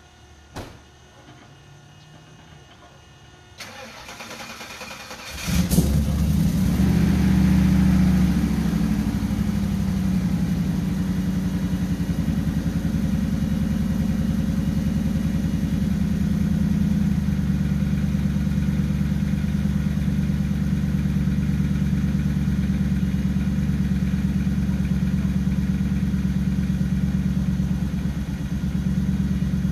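Ford Lightning pickup's V8 being cranked and catching about five seconds in. It revs briefly, then settles into a steady, evenly pulsing idle.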